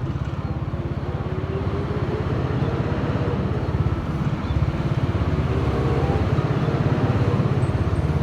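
Engine sound from a toy vehicle: a steady, rapid low pulsing like an idling engine, with a faint tone gliding slowly up and down above it.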